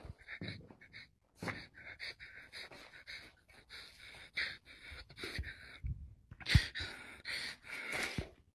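Rapid, heavy breathing of a man close to the microphone, in quick, irregular breaths, with a few dull thuds in the second half, the sharpest about two-thirds of the way in.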